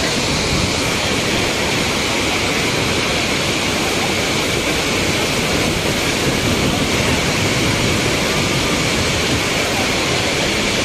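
River water pouring over a low weir and tumbling into foaming rapids: a loud, steady rush of water with no breaks.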